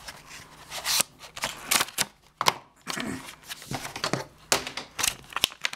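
Clear plastic packaging tray of a phone case being handled and pulled apart, with irregular crackling, clicks and rustles as the case comes out of it.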